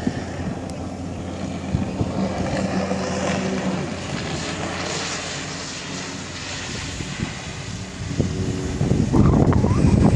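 Steady engine drone of a small propeller plane flying over, mixed with the engine of a jet ski running on the lake. About nine seconds in, a louder, rougher rushing noise comes in.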